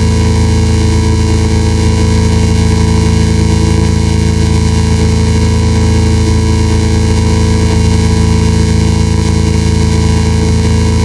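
Loud, steady electronic drone: many held tones layered over a constant hiss, unchanging throughout.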